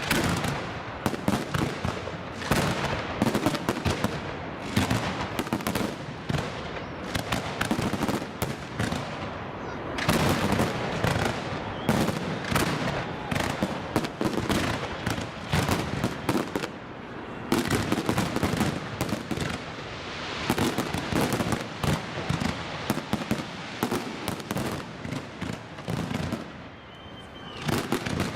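Fireworks display: a dense, continuous barrage of rapid bangs and crackles from aerial shells, with a short lull near the end.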